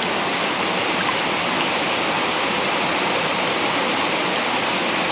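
Mountain creek water rushing steadily.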